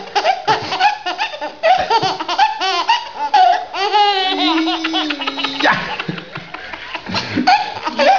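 Baby laughing hard in one fit after another: high-pitched giggles and belly laughs with short breaths between them.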